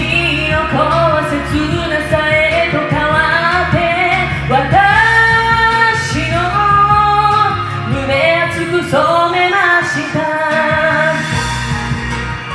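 A woman singing a J-pop ballad cover over a pop backing track.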